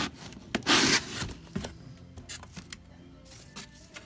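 Rustling and scraping of a cardboard ceiling fan box, its paper instruction sheet and foam packing being handled, with the loudest rustle about a second in followed by scattered light knocks and scrapes.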